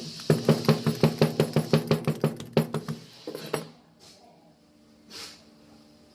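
Rapid knocking, about six sharp strikes a second for nearly three seconds, then two more knocks, over a faint steady hum.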